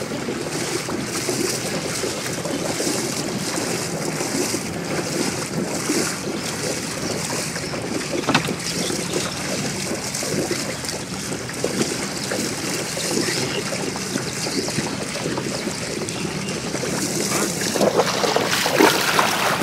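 Water sloshing and splashing as a push net is worked through shallow floodwater, with wind buffeting the microphone; the splashing grows louder near the end.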